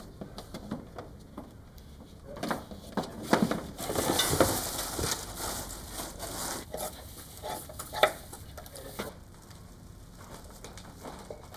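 Cardboard box being cut open and an artificial Christmas tree pulled out and handled: rustling and scraping of cardboard and plastic branches with scattered clicks and knocks. The rustling is densest about four seconds in, and there is a sharp knock about eight seconds in.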